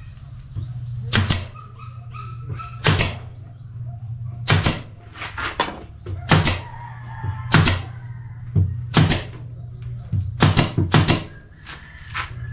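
Pneumatic nail gun firing about a dozen times, singly and in quick pairs, fastening a drawer guide to a plywood cabinet side, over the steady low hum of a running machine.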